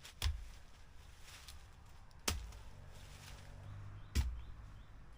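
A digging tool striking the ground three times, about two seconds apart, each a sharp hit with a dull thud, as a hole is dug in soil.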